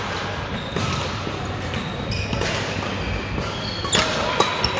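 Badminton rally in a large hall: sharp racket strikes on the shuttlecock, several close together near the end, mixed with short high squeaks of court shoes on the sports floor.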